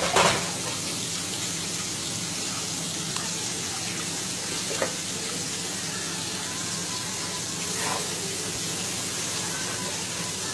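Steady sizzling hiss of a milk gravy cooking in a pot on the stove, with a few faint knocks from the utensil against the pot.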